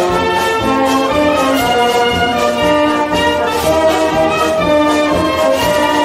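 Military wind band playing a march, brass to the fore over a steady beat, from a 1960s stereo LP recording.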